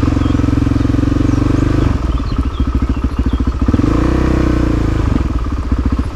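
Suzuki DR-Z400SM supermoto's single-cylinder four-stroke engine running at low revs with a fast, even pulse, rising briefly in revs about four seconds in and settling back.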